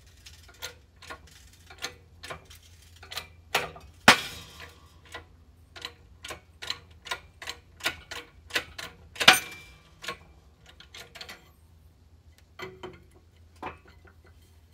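Porsche 356 fourth gear being pushed out of its pressed-on steel dog-teeth ring in a hydraulic shop press, heard as a run of sharp metallic clicks about two a second. Two much louder cracks come about four and nine seconds in, as the tight press fit is forced under heavy load.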